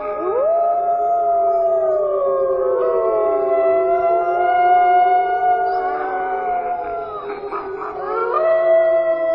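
A chorus of wolves howling: several long howls at different pitches overlap and slide slowly up and down, with a fresh howl rising near the end.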